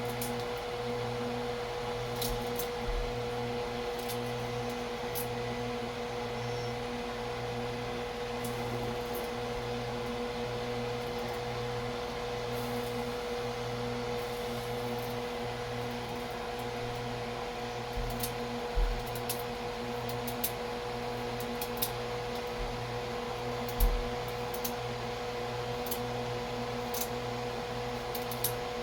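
Steady electric motor hum of an unchanging pitch, with a few light knocks and clicks of kitchen utensils and pots; the loudest knock comes about three-quarters of the way through.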